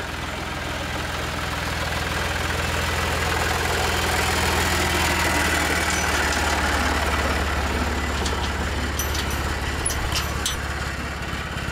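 A motor vehicle running steadily, with a constant low engine hum under even road or rushing noise. A few faint light ticks come near the end.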